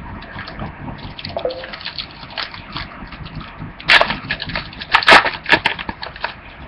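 Crinkling and crackling of a foil trading-card pack being torn open and the cards handled, with the sharpest crackles about four and five seconds in.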